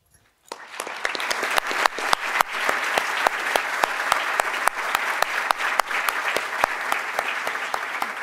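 Applause from an audience and the head-table panel, starting about half a second in after a brief silence, with sharp single claps standing out of the steady clapping.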